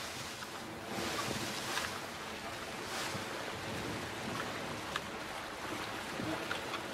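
Sea waves washing around a small sailing skiff, with wind, surging several times in the first few seconds. A few faint ticks come later.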